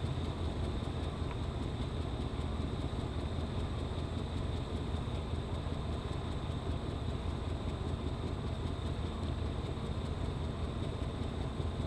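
Pickup truck engine idling steadily, a continuous low rumble with no change in speed.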